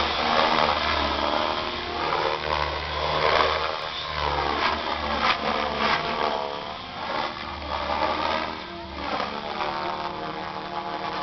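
Align T-Rex 550 electric RC helicopter flying 3D aerobatics: the whine of the rotor and motor bends up and down in pitch over and over as it swoops and climbs, and grows quieter as it climbs high overhead.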